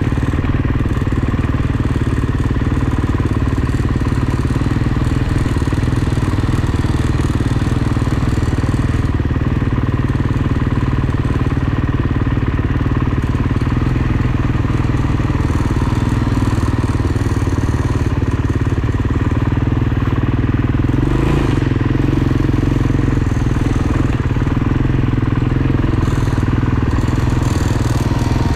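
Off-road motorcycle engine running steadily during a ride, with one brief knock about two-thirds of the way through.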